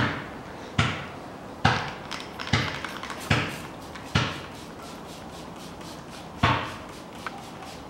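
Hand trigger spray bottle squirting a liquid solvent onto an engine block: a series of short hissing sprays about one a second, then a pause and one more spray near the end.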